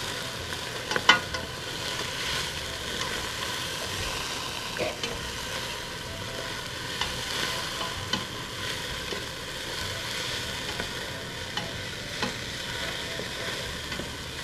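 Diced onion and celery sizzling in olive oil in a stainless steel pot while being stirred, with a few sharp clicks of the utensil against the pot, the sharpest about a second in. The vegetables are being sautéed until tender and kept moving so they don't brown.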